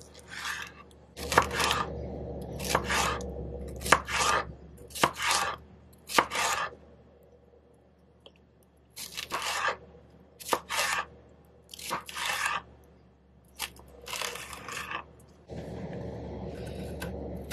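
Chef's knife slicing through bell peppers and then a purple potato, each cut ending on a plastic cutting board. The cuts come one at a time at an uneven pace, with a pause of about two seconds before the middle.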